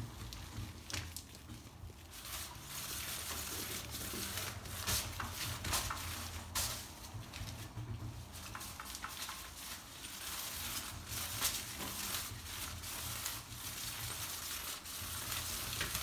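A ferret and a kitten scampering and scuffling on an artificial-turf mat and plastic sheeting: a continuous scratchy rustle with scattered clicks and taps, over a low steady hum.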